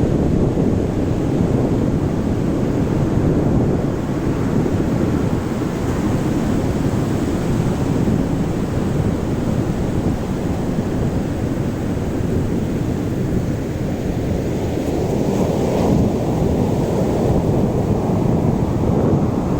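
Wind buffeting the microphone over the steady wash of sea waves on the shore, with a louder surge about three-quarters of the way through.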